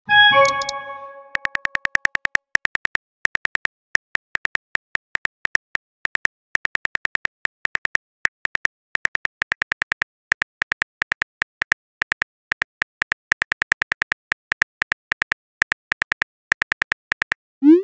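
Texting app's keyboard typing clicks, several a second in an uneven rhythm, as a message is typed out. It opens with a short chime of several tones dying away and ends with a quick rising swoop as the message is sent.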